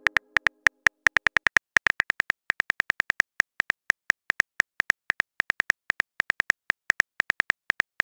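Simulated smartphone keyboard tap clicks as a text message is typed: a quick, irregular run of short, sharp clicks, about six or seven a second.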